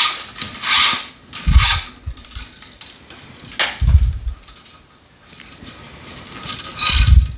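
Tennis string being pulled through a racket's string bed while weaving the crosses: a run of short swishes, with a few dull knocks from the racket and stringing machine being handled.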